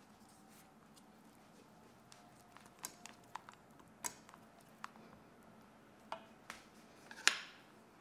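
Spatula stirring melted white chocolate in a stainless steel bowl: scattered light clicks and taps against the bowl, with a louder ringing clink near the end.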